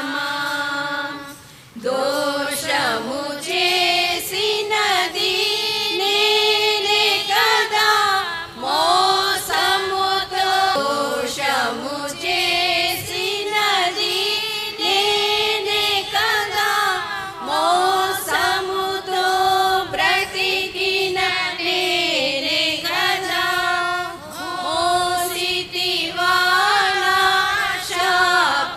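A group of women singing a Telugu hymn together into microphones, with a short pause between lines about a second and a half in.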